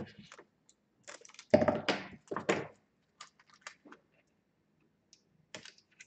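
Kapton tape being handled while insulating a circuit board: a cluster of short peeling and crackling sounds, loudest around two seconds in, then scattered light clicks and taps.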